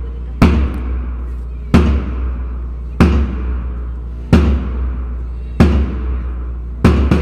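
Large bass drum struck in a slow, even beat, about one stroke every 1.3 seconds, each boom ringing out before the next; near the end two strokes come close together. The beat keeps time for a group physical-training drill.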